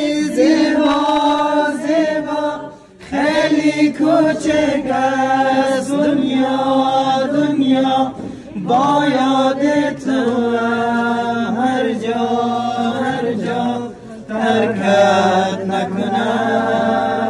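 A small group of men singing a song together without instruments, in long held phrases with brief breaks for breath.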